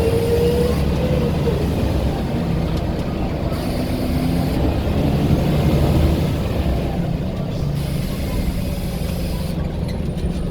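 Scania L94 bus engine running with its turbocharger whistle rising in pitch, ending under a second in, then the engine's rumble running on under way.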